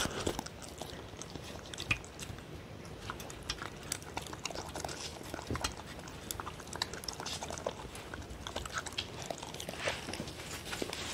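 Dog eating from a stainless steel tray: wet lapping, chewing and mouth smacks in small, irregular clicks.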